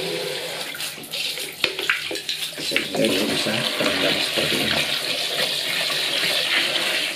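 Water from a garden hose gushing steadily into a plastic bucket and splashing over a plastic bottle wound with braided fishing line as it is rinsed, with a few sharp clicks and knocks from handling.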